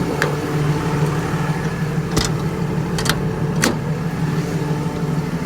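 Ford F750's 6.7 Cummins diesel idling with a steady hum, with a few sharp clicks about two, three and three and a half seconds in.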